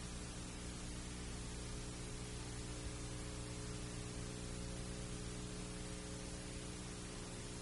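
Steady hiss with a low electrical mains hum underneath: the recording's own background noise, unchanging, with no other sound.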